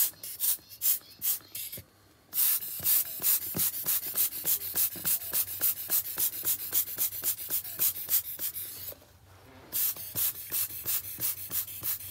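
Quick rhythmic puffs of air blown over wet alcohol ink on paper, about three a second, with two short breaks, about two seconds in and about nine seconds in.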